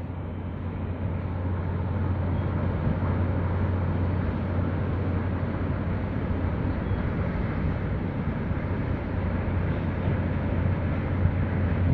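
Low, steady rumble of a large container ship's engine as it moves through the harbour, mixed with wind buffeting the microphone.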